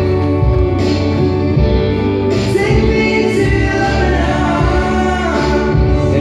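Background music: a song with singing over steady instrumental accompaniment.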